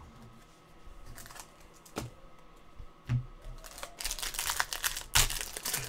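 A few light clicks and taps of cards and packs being handled, then from about four seconds in, a foil trading-card pack wrapper crinkling as it is torn open.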